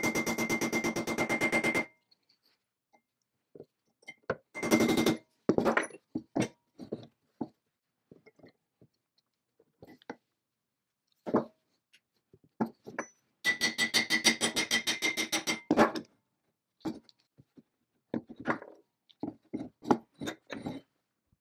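Rapid strokes of a steel pick scraping rust around a seized pin in the hub of a Babcock tester's spoked crank wheel, the metal ringing with each stroke, in two runs of about two seconds, one ending about two seconds in and one in the second half. Between them come scattered clicks and taps of pliers and tools gripping and working the pin.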